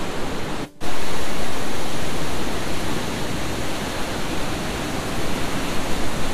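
Steady, loud rush of whitewater from the Linville River's rapids and falls running high. It drops out briefly just under a second in, then comes back louder and settles.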